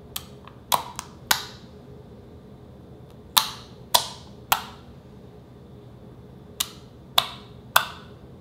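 Fingertips poking into glossy slime, each poke giving a sharp, short pop. There are about ten pops in three groups: four, then three, then three.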